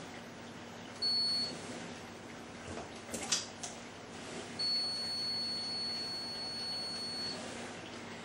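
Electronic buzzer on a proximity-sensor test unit giving a high, steady beep: a short beep about a second in, then a longer one of nearly three seconds. It signals the diffuse proximity sensor switching its output when the jar's lid is absent. A few light knocks of a plastic jar being handled on a countertop come between the beeps.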